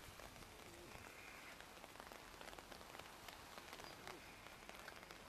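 Light rain falling, a faint steady hiss with scattered drops ticking on the umbrella overhead.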